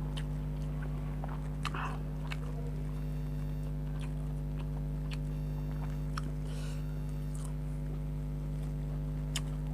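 Close-up eating sounds of a person chewing and biting grilled chicken: scattered wet clicks and short crunchy smacks, over a steady low electrical hum.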